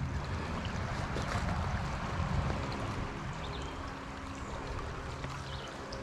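Shallow creek running over pebbles and stones, a steady water sound.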